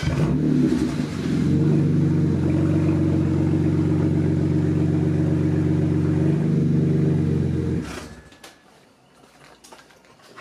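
BMW 3 Series engine running just after being started: it flares for about a second, settles into a steady idle, then is switched off and cuts out about eight seconds in.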